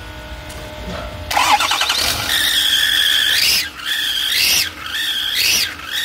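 Ford 6.4 L Power Stroke V8 diesel starting about a second in, then a loud high whine that climbs in pitch and falls back about once a second as the engine is revved. The whine comes from exhaust leaking past a broken exhaust manifold bolt.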